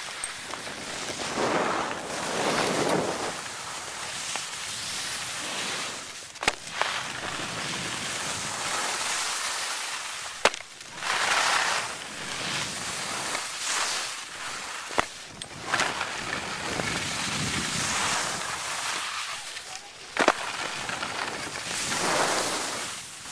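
Skis hissing and scraping over packed snow, swelling and fading with each turn, with wind on the microphone. A few sharp clicks fall between the turns.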